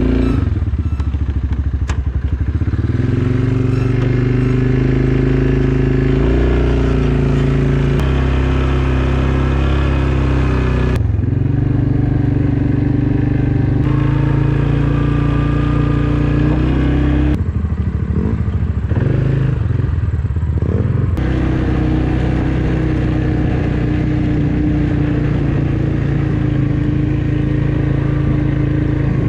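Quad (ATV) engine running while riding, a steady loud drone whose pitch shifts abruptly a few times.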